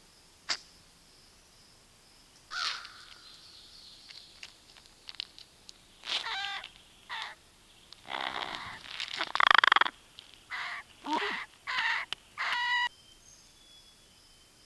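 American crows cawing: a string of separate caws of varying length, the loudest about two-thirds of the way through, after a single sharp click near the start.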